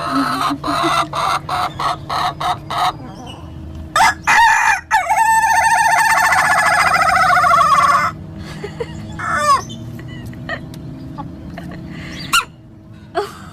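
Ayam ketawa (Indonesian laughing chicken) rooster crowing. A run of short staccato notes leads into one long, rapidly fluttering, laugh-like crow of about four seconds, followed by a few shorter calls.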